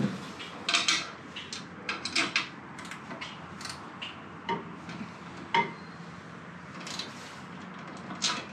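Scattered light knocks and clicks, about a dozen spread over several seconds, a couple with a short ring, over a faint steady background.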